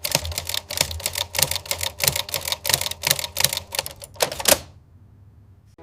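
Rapid, regular clicking, several sharp clicks a second, that stops abruptly near the end.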